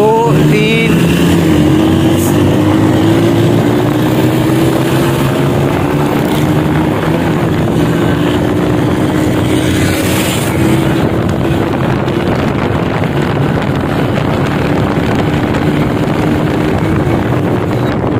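Motorcycle engine running under the rider at road speed. Its note climbs at the start, then holds steady, with wind buffeting the microphone.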